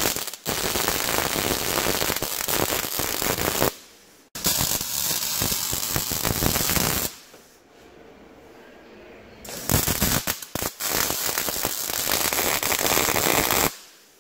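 Wire-feed welder arc crackling and spitting as it welds steel, in three runs of a few seconds each with short pauses between where the arc is off.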